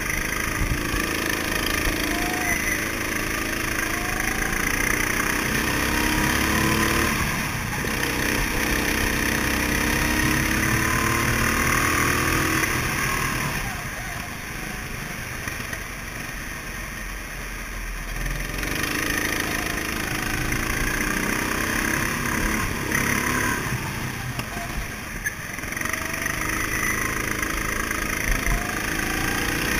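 Go-kart engines running hard, their pitch climbing for several seconds as they accelerate and dropping back as they slow, over and over, with a quieter stretch about halfway through.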